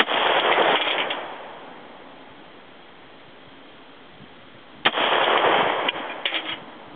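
Two AR-15 rifle shots about five seconds apart, each a sharp crack followed by about a second of loud tail. A few quick cracks trail the second shot.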